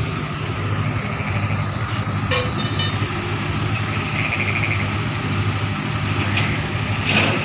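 Heavy diesel engine idling steadily, a low even hum, with a brief faint chirping about four seconds in.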